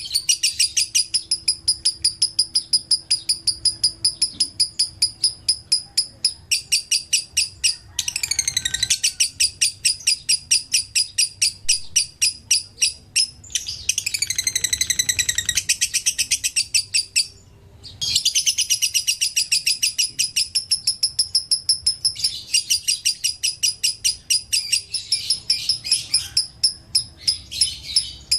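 Lovebird chattering: a long run of rapid, high-pitched chirps, about five a second, with one short break about eighteen seconds in.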